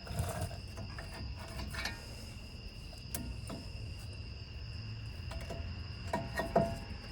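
Steady high-pitched trill of crickets, with scattered light metallic clinks and knocks from brake parts and hand tools being handled. The loudest knocks come about six seconds in.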